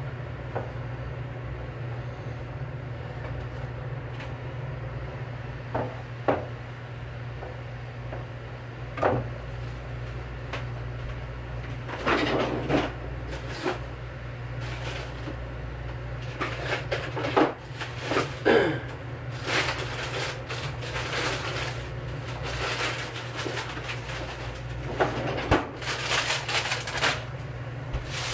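Water heating in a lidded hammered-aluminium saucepan over a gas burner: a steady low hum with scattered ticks and knocks that grow into dense bursts of clattering and bubbling from about halfway through as it nears the boil.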